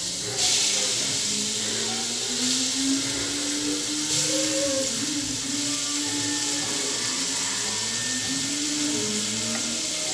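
Diced pork leg sizzling in hot oil as the pieces are dropped into the pot, a steady frying hiss that jumps up about half a second in.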